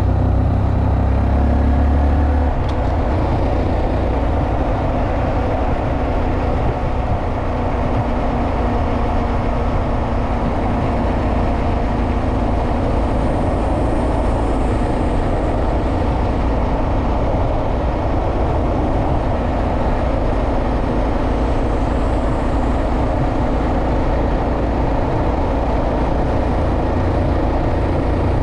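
Honda Monkey 125's single-cylinder four-stroke engine running steadily while the bike is ridden along the road.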